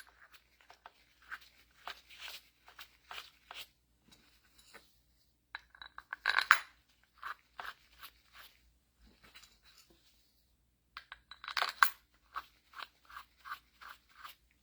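Steel bolts dropped into the bolt holes of a hydraulic pump housing and worked into place by hand: a run of light metal clicks and clinks, with louder clatters about six and twelve seconds in.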